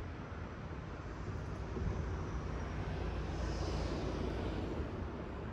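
City traffic noise: a steady low rumble that swells as a vehicle passes a little past the middle, then eases off.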